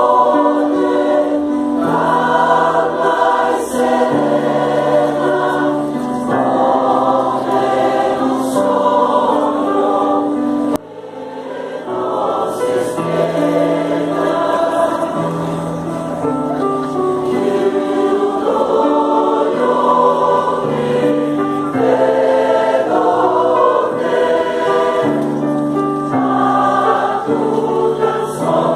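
Mixed choir of women and men singing a hymn-like song in parts, in sustained chords. The sound drops out briefly about eleven seconds in and then carries on.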